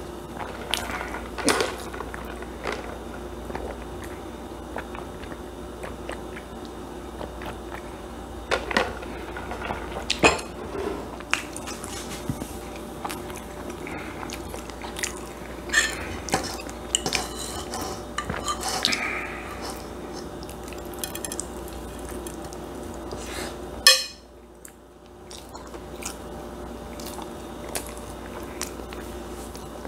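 Eating sounds: a metal spoon clinking and scraping against a stainless steel pan and a plate, with intermittent chewing. Scattered sharp clicks and knocks, the loudest about three-quarters of the way through, after which the background briefly dips.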